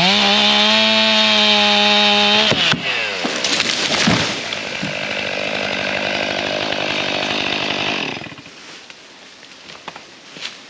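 Chainsaw revs up to full throttle in a felling cut, then drops off high revs about two and a half seconds in, with a couple of sharp cracks and knocks as the hinge wood gives and the tree comes over. The saw keeps running at lower revs and stops about eight seconds in.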